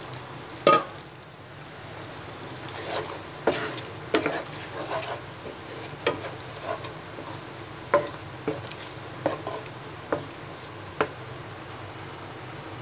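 A spoon or spatula knocking and scraping against a pan as milk is stirred into a bubbling chicken sauce: one sharp knock about a second in, then scattered taps. A steady high-pitched whine runs underneath and stops near the end.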